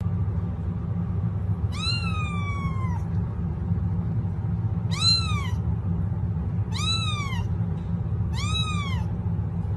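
Kitten meowing four times in a high voice. The first call is longer and trails off downward; the other three are short, rising then falling. A steady low hum runs underneath.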